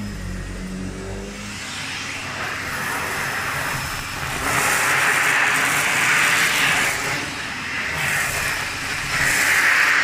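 SEBO Felix upright vacuum cleaner running on full suction: a low steady hum from the machine on the carpet for the first second and a half, then the hose and crevice tool sucking air along the carpet edge, a hissing rush that grows louder about four and a half seconds in and swells and eases as the tool moves.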